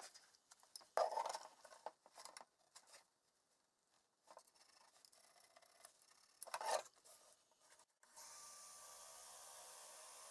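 Clicks, knocks and rubbing from metal parts being handled, with a louder clatter about a second in and again after six seconds. Then a cordless drill runs steadily, boring into the wooden floor of a cabinet, for the last two seconds.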